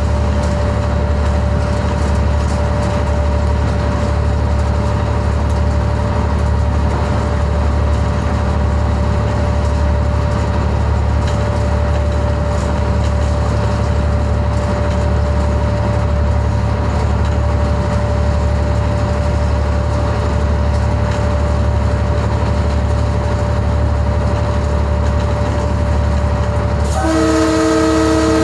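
GMCU-15 diesel locomotive running steadily at speed: a low engine drone with a steady high whine over a constant rushing noise. About a second before the end, the locomotive's multi-tone horn starts sounding as a held chord.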